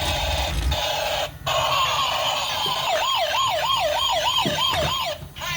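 Toy police car's electronic siren sound effect from its small built-in speaker. A hissing noise runs throughout, and a fast wailing yelp of about four wavers a second comes in about three seconds in and stops near the end. There are a couple of low thumps near the start.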